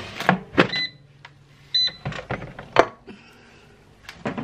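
An air fryer basket is slid into its unit with a few plastic clunks and clicks. The air fryer gives two short electronic beeps about a second apart.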